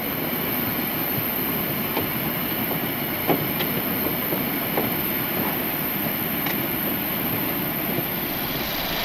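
Steady rumble with a high whine from a parked Boeing 737 and the ramp around it. Scattered knocks and clacks come through it as people with wheeled bags climb the metal airstairs.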